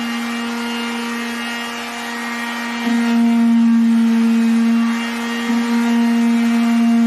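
Fisch electric orbital sander running with a steady motor hum as it sands a plywood tabletop, growing louder about three seconds in.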